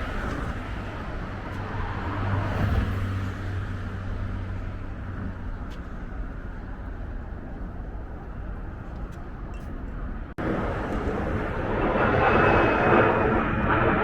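Outdoor street noise with road traffic going by. About ten seconds in it cuts off abruptly and picks up as a louder, busier ambience.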